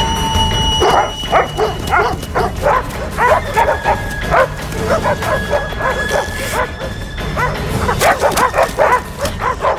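Dogs barking and yelping in quick succession, growing loudest about eight seconds in, over a film score of long held tones.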